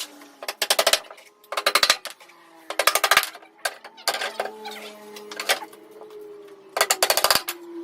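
Short bursts of rapid mechanical hammering, each about half a second long and repeating roughly every second, typical of a power tool such as a rotary hammer being worked in bursts. A faint steady tone runs between the bursts.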